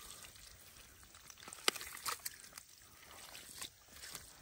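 Faint trickling and pouring of shallow stream water being stirred, with a few short sharp clicks in the middle.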